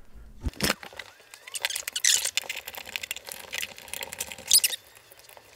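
Hands handling a studio microphone in its spider shock mount: a few sharp clicks, scattered rustling and knocking, and a couple of short high squeaks from the elastic suspension being worked.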